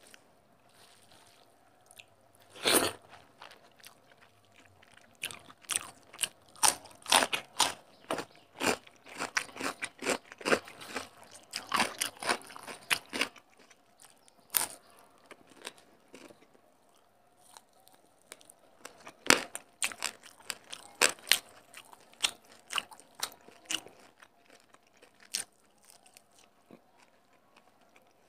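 Close-miked eating sounds: crunching bites and chewing of fried katla fish with rice eaten by hand. The sharp crunches come in dense runs, busiest in the first half, with a quieter stretch in the middle.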